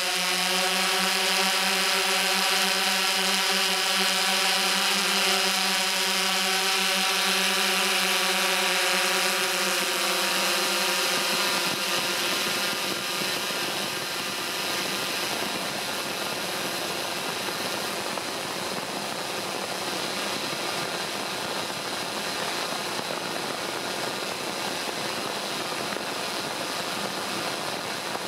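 DJI S1000 octocopter's motors and propellers in flight, heard through the camera slung beneath it: a loud, steady pitched whine with a hiss over it. About eleven seconds in, the whine turns rougher and a little quieter.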